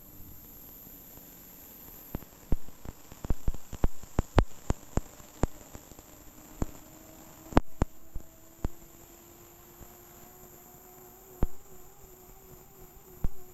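A quick run of sharp knocks and clicks, then a few more spaced apart, over a faint steady hum with a low tone that slowly rises.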